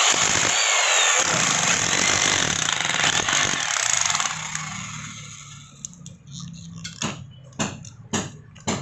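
Corded electric rotary hammer with a chisel bit hammering into the base of a wooden tree stump, chipping away the wood. It runs steadily for about four seconds, then winds down, and a few separate sharp knocks follow near the end.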